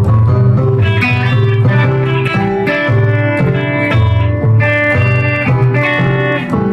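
Guitar-led music with a bass line moving in steady low notes.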